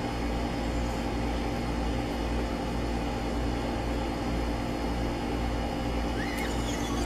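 A steady machine hum with a low rumble and several constant tones, unchanging throughout.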